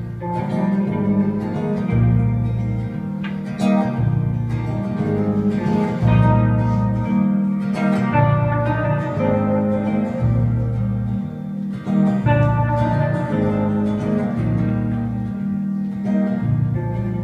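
Live music led by guitar, with deep bass notes that change every second or two under the higher guitar notes.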